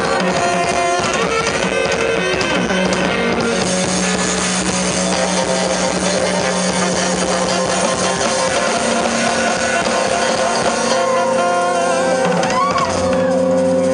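Live funk band playing, with drum kit, electric guitars and saxophone. About eleven seconds in, the drums and low bass drop out, leaving held notes as the song winds down.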